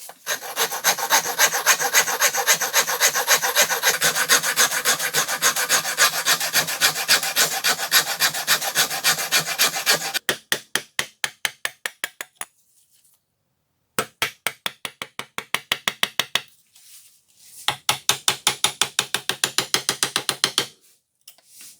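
Hand file scraping in rapid, even back-and-forth strokes. The strokes run without a break for about the first half, then stop and start again twice with short pauses.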